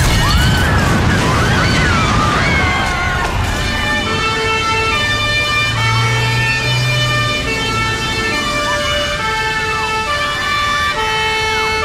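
Emergency vehicle sirens: overlapping rising and falling wails for the first few seconds, then a two-tone siren switching back and forth between two pitches.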